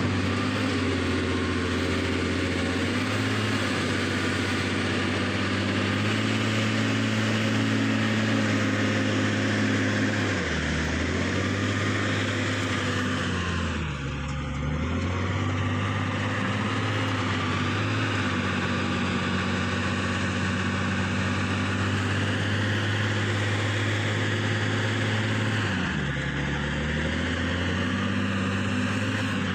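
Diesel engine of a JCB earthmoving machine running steadily at high revs. Its pitch sags and recovers a few times as it takes load.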